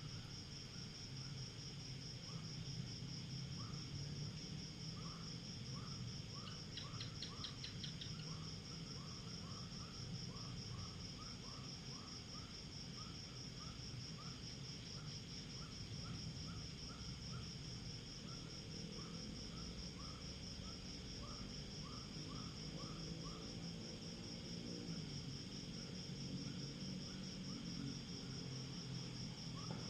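Rural night chorus of insects: crickets keep up a steady, fast-pulsing high trill, while short chirps come scattered throughout and a brief rapid trill sounds about seven seconds in, all over a low rumble.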